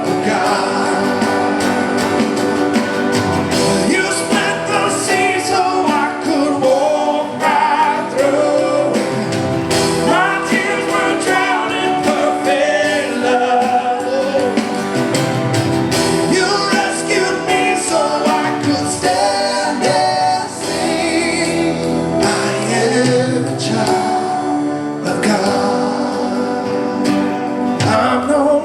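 Live church worship music: singers carrying a worship song over a band, without a break.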